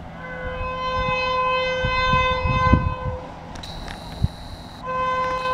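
WAP-7 electric locomotive's air horn blowing as the train approaches at speed: one long steady blast of about three seconds, a brief higher tone, then the horn again near the end. Low rumbling sits underneath.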